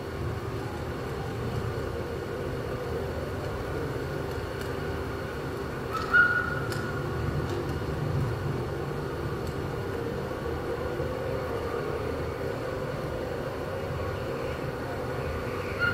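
Steady low rumble and hum of the exhibition hall's ambient sound, with a brief higher-pitched tone and a few faint clicks about six seconds in.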